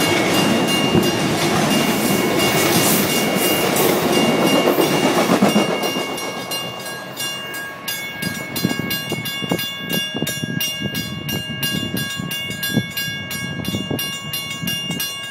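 Amtrak Capitol Limited's bilevel Superliner passenger cars rolling past, their wheels clattering on the rails. The sound is loud until about six seconds in, then fades as the train draws away, leaving quieter, irregular clicking.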